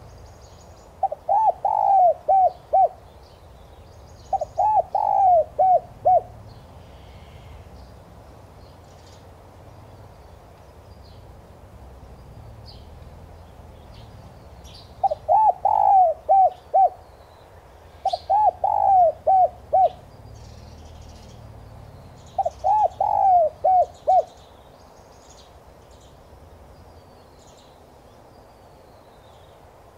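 Spotted dove cooing, five times: each coo is a quick run of about five or six short mellow notes. Faint high chirps of small birds fall between the coos.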